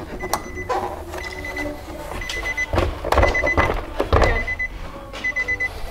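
Short high electronic beeps repeating about once a second, over knocks and clicks of a plastic truck side-mirror housing being forced loose from its door clips.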